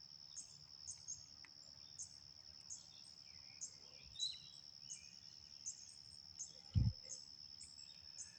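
Steady high insect chorus, crickets trilling with a short chirp repeating two or three times a second. A single dull thump about seven seconds in.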